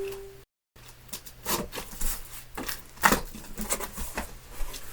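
Irregular rustling, rubbing and light knocks of cardboard and fabric being handled, with a brief total dropout about half a second in.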